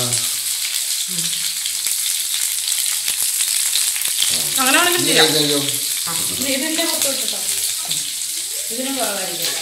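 Food sizzling in hot oil in a frying pan, a steady hiss throughout, with people's voices over it about halfway through and again near the end.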